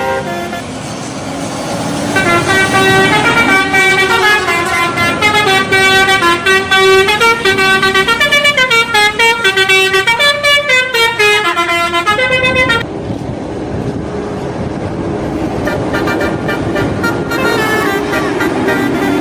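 Bus telolet horn, a multi-tone musical air horn, playing a quick tune of notes stepping up and down; it starts about two seconds in and cuts off abruptly about two-thirds of the way through. The bus's engine and road noise carry on underneath and after.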